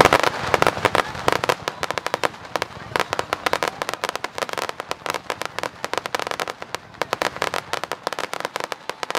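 Fireworks bursting into crackling stars: a loud bang at the start, then a dense, rapid crackle of many small pops that keeps on throughout.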